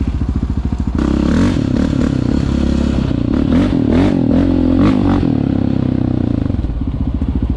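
Quad engine running with a fast, steady pulse, then revved up and down repeatedly from about a second in, with some clattering, before dropping back to a steady run near the end.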